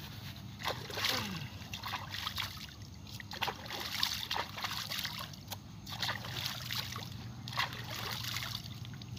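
Hands splashing and scooping in shallow pond water: irregular splashes with trickling between them, hand-fishing for climbing perch.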